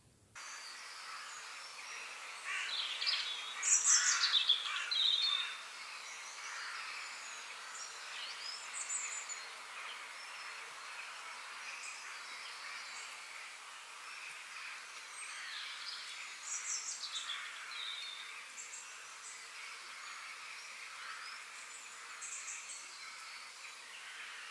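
Birds chirping and calling over a steady background hiss, with a busy, louder burst of calls about three to five seconds in and scattered chirps after that.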